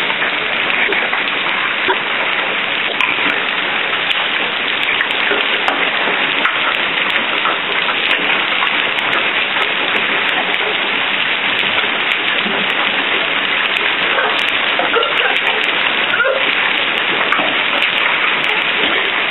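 Hail falling heavily and steadily: a dense, even hiss of hailstones hitting the ground.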